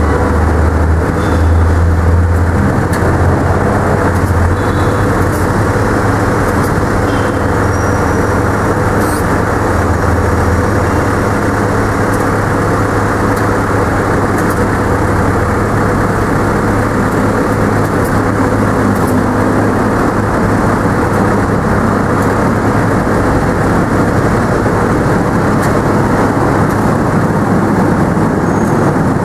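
Engine of a truck-mounted manlift running steadily at close range, with a heavier low rumble during the first ten seconds or so.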